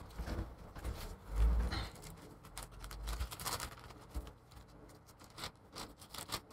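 Light crackling and clicking of display adhesive strips and their plastic backing being handled and peeled apart, with a few dull low thumps, the loudest about a second and a half in.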